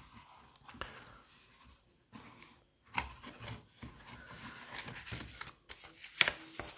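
Cardboard phone-box packaging being handled: the inner tray and a card envelope rubbing and scraping as they are worked loose and lifted out, with scattered clicks and a sharper snap a little after six seconds.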